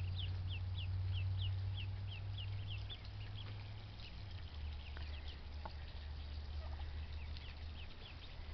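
Ducklings peeping: a quick, even run of short high peeps, about three a second, that thins out after about three seconds into scattered peeps, over a low steady rumble.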